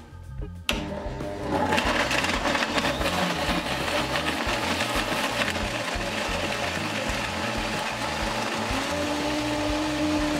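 Revoblend high-speed blender switched on about a second in, quickly coming up to speed and running steadily as it purées a tomato sauce of fresh and dried tomatoes, onion and olive oil. Background music with a beat plays underneath.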